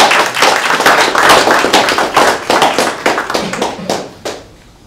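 Audience applauding: many hands clapping at once, thinning out and stopping about four seconds in.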